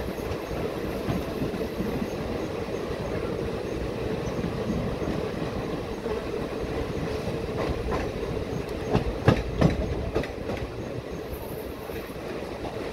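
Wheels of a moving Indian Railways passenger coach running over the track, heard from the coach's open doorway: a steady rumble with a constant hum. A cluster of sharp clickety-clack clanks comes about eight to ten seconds in as the wheels cross rail joints or points.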